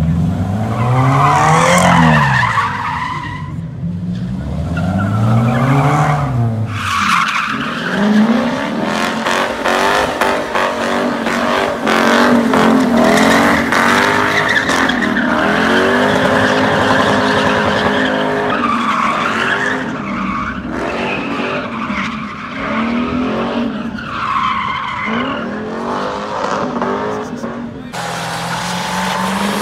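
A car doing donuts. Its engine revs up and down over and over for the first several seconds, then holds high revs while the tires squeal and smoke without a break. Near the end a second vehicle, a pickup truck doing a burnout, takes over.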